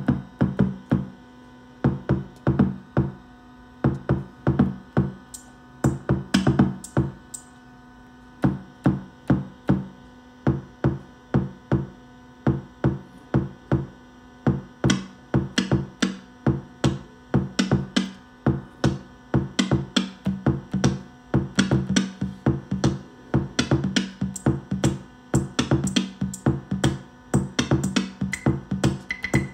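Korg Volca Beats analog drum machine playing a pattern of short low pitched hits with bright ticks. The pattern is uneven at first and gets busier about halfway through.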